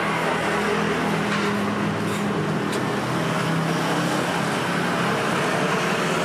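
Steady street traffic noise, with an engine humming close by.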